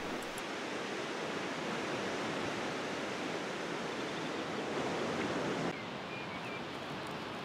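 Steady, unbroken rushing noise of an outdoor meadow, which changes at a cut near the end to a quieter, thinner hiss with a brief faint high chirp.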